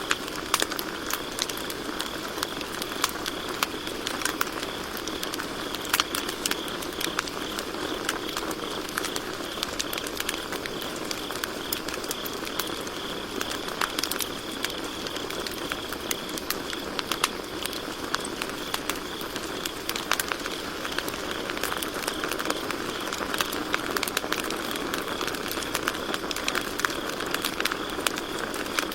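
Campfire crackling, with frequent sharp pops over a steady hiss, and crickets chirping steadily at a high, even pitch behind it.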